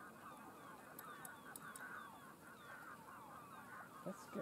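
Faint, many overlapping calls from a flock of birds, repeating several times a second, with a few louder, lower sounds near the end.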